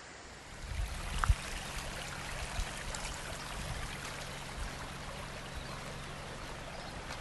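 Floodwater rushing steadily through a wadi, an even rush of water that begins abruptly about half a second in, with scattered low thumps underneath.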